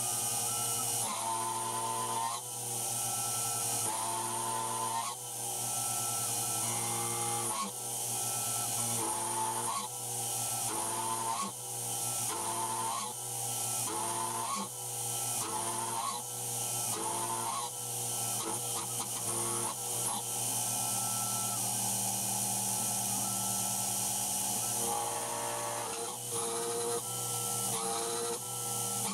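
CNC milling machine cutting mild steel with a quarter-inch four-flute carbide endmill spinning at about 8,000 rpm, making a steady high cutting hiss. Over it the table's motors whine in tones that jump to a new pitch every half second to a second as the cut changes direction.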